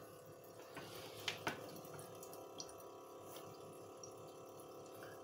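Faint steady hum of a small water pump with water trickling and dripping as it circulates rinse water through the jars, with two light ticks just over a second in.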